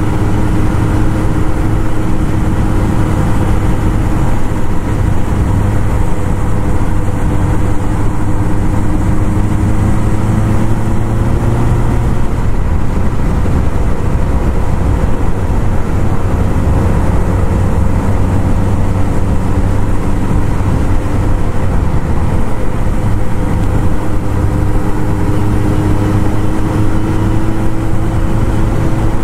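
1978 Kawasaki KZ1000's air-cooled inline-four running under way, with heavy wind rush over the microphone. The engine note shifts and fades about twelve seconds in, then rises again near the end.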